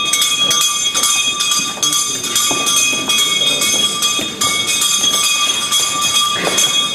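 A bell rung over and over, several strikes a second, its ringing tone sounding throughout: the call that the court is entering and the session is opening.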